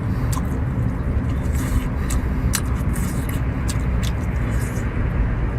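A steady low rumble throughout, with a few sharp clicks and smacks of someone chewing moray eel.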